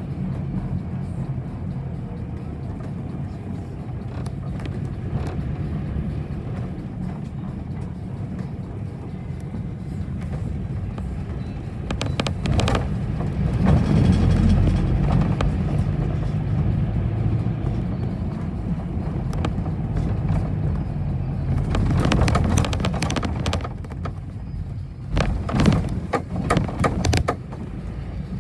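Bus interior while driving: a steady low engine and road drone, broken by clusters of rattling and knocking about halfway through and twice near the end.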